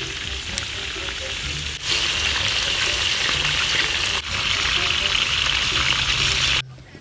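Raw sliced pork belly frying in oil in a large steel wok over a wood fire, a steady sizzle that gets louder about two seconds in. The sizzle cuts off suddenly near the end.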